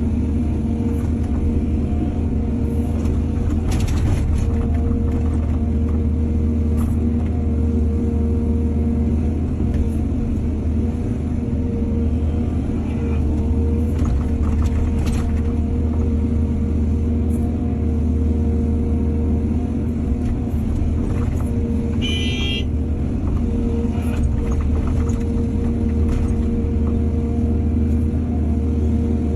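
Excavator's diesel engine running steadily under load with a deep, even rumble, and a few light knocks. A brief high squeal comes about two-thirds of the way through.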